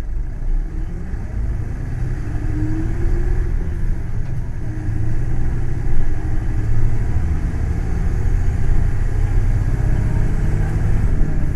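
Hino Blue Ribbon City Hybrid bus running, with a steady low rumble and a whine that rises in pitch a couple of seconds in as the bus gathers speed.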